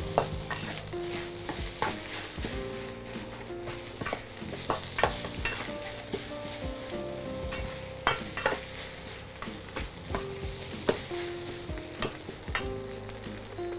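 Rice being stir-fried in a stainless steel wok: oil sizzling steadily while a metal spatula scrapes and clicks against the pan at an uneven pace.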